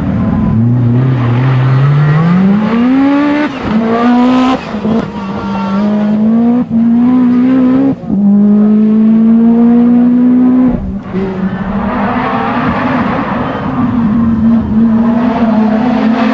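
Group B rally car engine accelerating hard, its note climbing and then dropping sharply at several gear changes.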